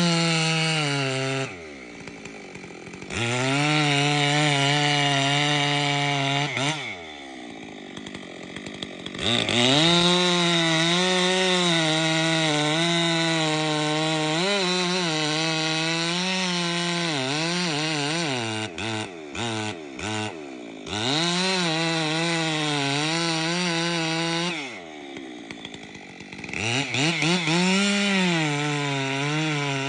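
Chainsaw cutting into the trunk of a large tulip poplar, running at full throttle with its pitch sagging and wavering under the load of the cut. Four times it drops briefly to idle and then revs back up into the wood.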